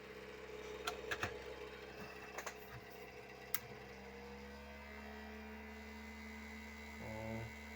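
Maxinter PLUS-10AT battery charger running under test, its cooling fan humming steadily, with a few sharp clicks in the first few seconds and a lower tone joining about halfway. The hum is the sign of a broken fan impeller, which the repairer takes as most likely.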